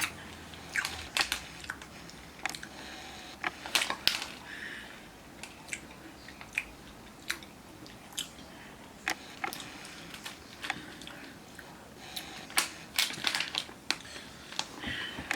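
A person chewing Skittles candies close to the microphone, with irregular sharp crunching clicks of the candy shells.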